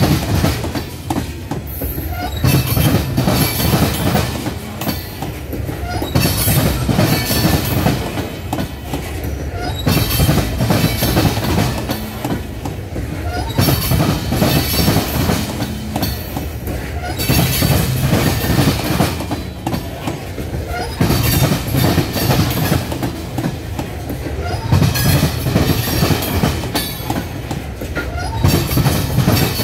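Loaded coal hopper cars of a freight train rolling slowly past. The wheels clack over the track in a cluster every three to four seconds as each set of trucks goes by.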